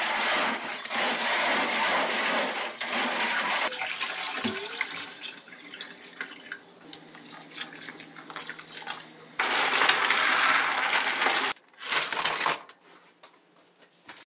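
Blood cockles being scrubbed by hand in water in a steel pot, the shells rubbing and clattering while the water sloshes. A quieter stretch of bubbling water follows, then two louder bursts of splashing water near the end.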